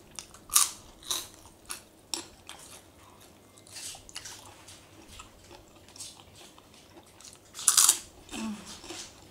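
Close-miked eating sounds: bites and chewing of crunchy food in irregular bursts, with the loudest and longest crunch near the end.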